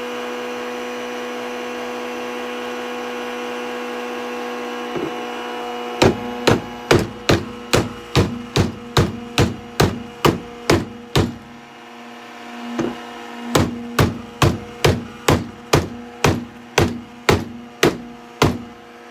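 A commercial vacuum cleaner's motor running with a steady hum, then, from about six seconds in, a small hammer hitting the vacuum over and over, about two to three blows a second, in two runs with a short pause between them.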